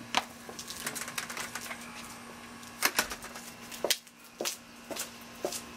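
Storm door and front door being handled, with footsteps on a porch: a string of irregular sharp clicks and knocks over a faint steady hum.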